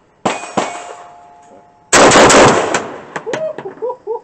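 CETME C308 .308 battle rifle fired in a quick double tap about a quarter second in. About two seconds in comes a rapid run of loud shots close together that trails off into single reports.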